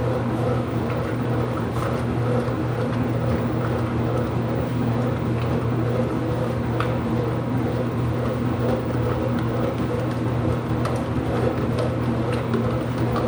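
IPSO washing machine running with a steady, even motor hum.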